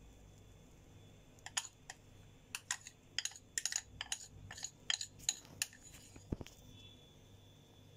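A quick, irregular run of light clicks and taps from a metal spoon knocking against the pan and bowl while batter is portioned out, about a dozen over four seconds, followed by one dull thump.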